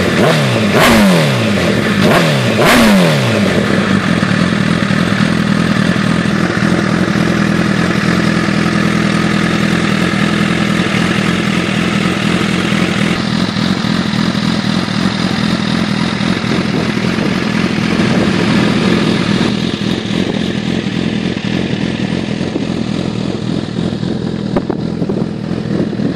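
2013 Honda CBR1000RR Fireblade's inline-four engine through a Yoshimura R77 carbon-fibre exhaust: three quick throttle blips in the first three seconds, each revving up and falling back, then idling steadily.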